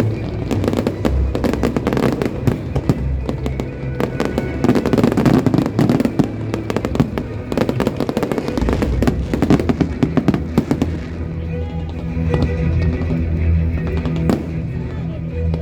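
Fireworks going off in quick succession, with many sharp bangs and crackles, over show music with a steady bass line.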